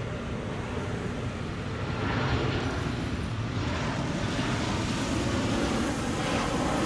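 Airplane flying over, a steady engine roar that grows gradually louder.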